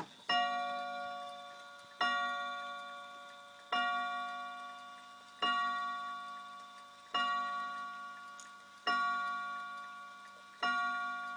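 31-day wall clock striking the hour on its rods: seven evenly spaced strokes about 1.7 seconds apart, each a rich metallic ring that fades slowly before the next.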